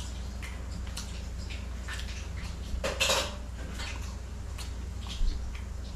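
Eating sounds at a plate: fingers scraping and picking food off a ceramic plate with small clicks of dishware, a louder rasping scrape about three seconds in and a short low thump a little after five seconds, over a steady low hum.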